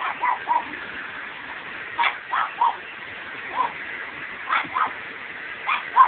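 Pug barking in short, high yips, about nine of them in bunches, over the steady whooshing hum of a running vacuum cleaner.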